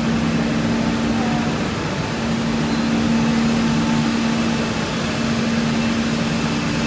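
Steady machinery hum: a constant low drone with a noisy rush over it, from industrial equipment running. The drone fades briefly about two seconds in, then comes back.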